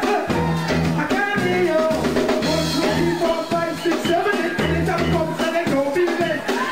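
Live band playing an original song: a drum-kit beat under a repeating low bass figure, with pitched instrumental lines above.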